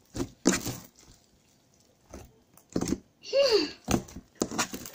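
Sticky homemade slime being kneaded and pulled by hand, giving short wet clicks and smacks as it pulls away from the fingers, with a brief falling vocal sound a little after the middle.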